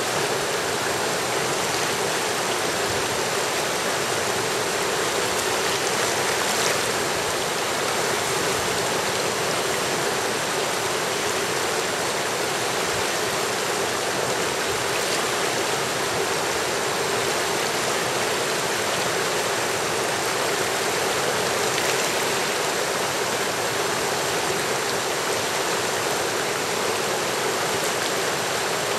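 Fast, turbulent river water rushing over rapids: a steady, unbroken rush of water that does not change.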